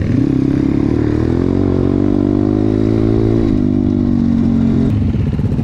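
Dirt bike engine running while being ridden, its pitch climbing steadily for a couple of seconds as it accelerates, then dropping back about halfway through and holding lower.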